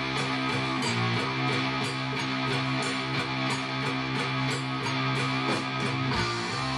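Heavy stoner-rock music led by electric guitar, with a steady beat.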